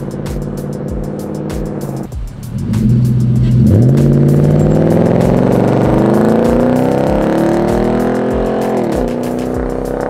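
Nissan Titan's 5.6-litre V8 through an aftermarket cat-back exhaust. It runs steady at first, then, about three and a half seconds in, the truck accelerates hard with the exhaust note rising in pitch for several seconds. The pitch drops at an upshift near the end and the engine settles into a steady note as the truck pulls away.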